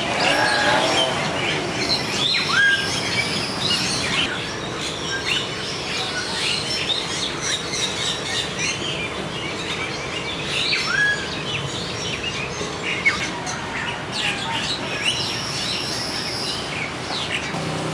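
Many birds chirping and calling at once: a dense scatter of short high chirps, with a clear rising whistle twice, about two seconds in and again near the middle.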